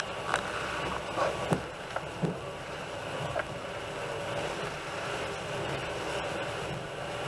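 Passenger train running, heard from inside the carriage: a steady rumble and rattle of the moving train, with a few light knocks and clicks in the first few seconds.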